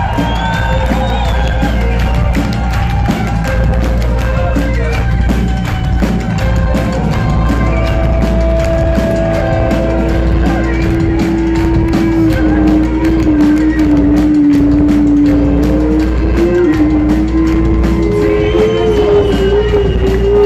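Live rock band playing: drum kit, guitars and a bowed violin, loud and steady. A long, slightly wavering held note carries through the second half.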